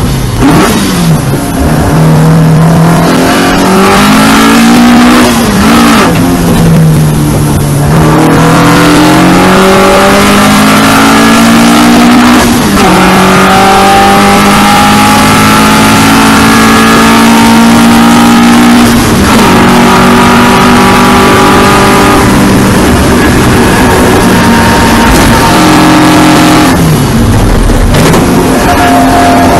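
Onboard sound of a 2-litre Alfa Romeo Giulia GTJ race car's twin-cam four-cylinder engine at racing pace, heard from inside the car. The revs dip and climb several times in the first eight seconds. They then climb in long pulls under full throttle, dropping back at each upshift about twelve and nineteen seconds in, and fall again with braking and downshifts near the end.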